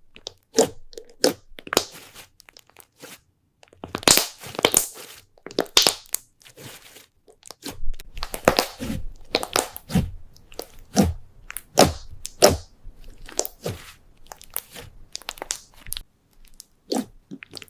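Slime being squeezed and worked by hand, giving an irregular series of short, sharp crackles and pops, some coming in quick clusters.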